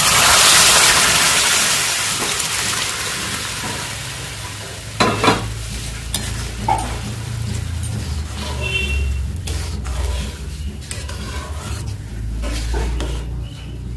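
Yogurt kadhi poured into hot spiced oil in a kadai, sizzling loudly at first and dying down over the first few seconds. Then a spatula knocks on the pan twice and stirs the curry.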